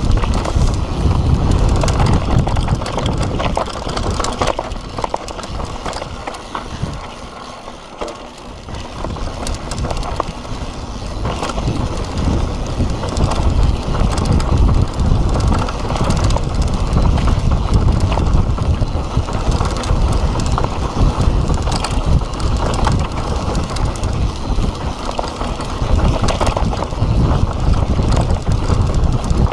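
Mountain bike riding fast down a dirt singletrack: the tyres rumble over the dirt and the bike rattles with many short clicks, while wind buffets the microphone. It goes quieter for a few seconds about seven to nine seconds in, then picks up again.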